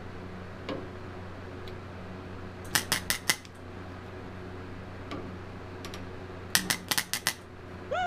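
MIG welder arc striking in two quick runs of short zaps, about five each, a few seconds apart: stitch or spot welding a patch panel into thin sheet steel. A steady low hum runs underneath.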